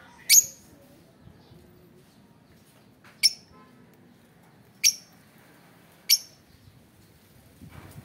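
Caged lovebirds giving four short, shrill, piercing calls, spaced one to three seconds apart.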